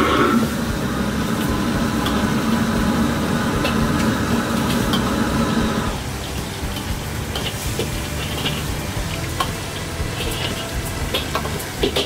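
Gas wok burner running at full flame under a carbon-steel wok, with noodles sizzling as they are stir-fried. In the second half a metal ladle clinks and scrapes against the wok several times.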